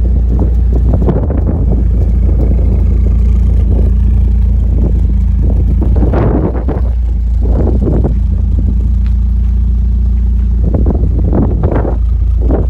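Renault Clio 182's 2.0-litre four-cylinder engine idling through a decatted Pure Motorsport exhaust, a steady low drone from the twin tailpipes. A few short, louder rushes come in about halfway through and again near the end.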